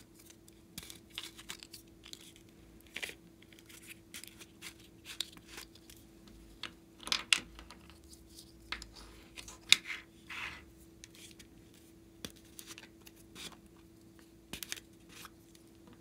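Small plastic containers handled and tapped while glitter and beads are shaken out of them onto slime: a string of irregular clicks, taps and scratchy rustles, loudest a little past the middle. A faint steady hum runs underneath.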